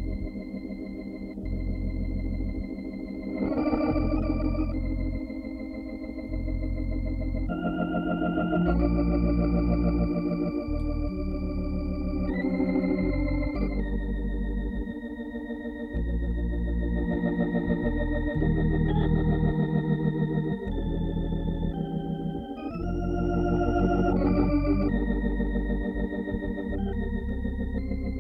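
Hammond B3 organ playing slow, held chords with a wavering vibrato over low bass notes that change every second or two.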